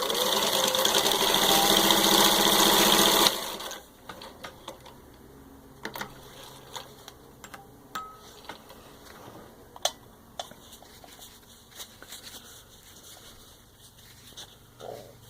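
Singer 15-91 sewing machine running at high speed, stitching through six layers of denim, then stopping abruptly a little over three seconds in. Scattered light clicks and taps follow.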